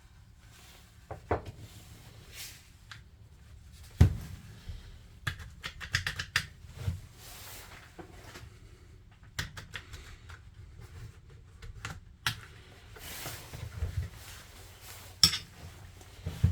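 Irregular clicks, clinks and knocks of small metal and plastic parts being handled while an angle grinder is taken apart for a carbon-brush change, with a sharp knock about four seconds in and a run of quick clicks soon after.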